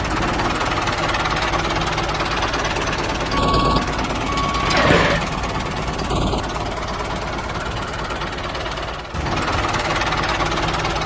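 Small engine of a mini DIY tractor running steadily with a knocking chug, just after starting.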